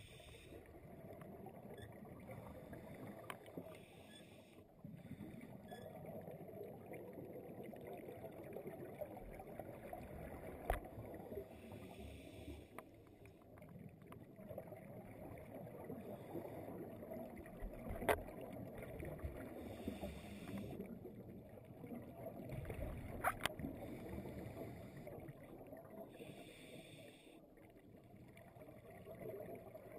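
Underwater ambience: a steady low rush, broken every several seconds by a short hiss of scuba exhaust bubbles from a diver's regulator, with three sharp clicks of gear.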